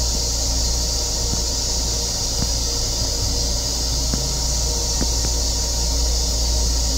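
Steady hiss over a low rumble inside an M7 electric railcar's restroom: the car's running and ventilation noise, with a few faint clicks.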